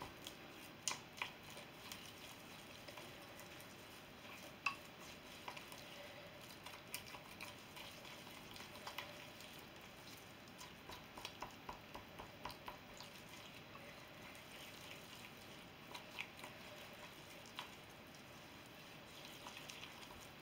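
A spoon stirring a thick paste of coconut oil and honey in a small stainless steel bowl: faint soft scraping with irregular light clicks of the spoon against the metal.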